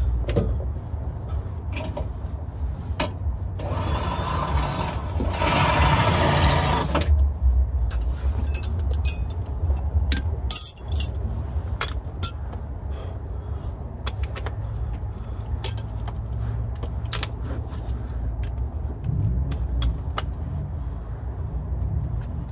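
Scattered sharp metallic clinks and taps of hand tools on a vehicle's underside, over a steady low rumble; about three and a half seconds in, a loud hissing rush lasts roughly three seconds.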